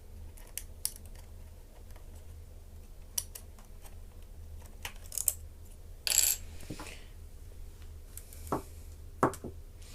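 Small clicks and knocks of a laptop's small internal parts and screws being handled and pried during disassembly, scattered at irregular intervals, with one brief scraping rattle about six seconds in and two sharper knocks near the end. A low steady hum runs underneath.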